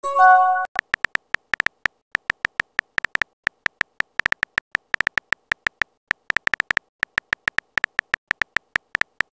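A short messenger notification chime as a new message arrives, followed by rapid, irregular smartphone keyboard tap clicks as a reply is typed.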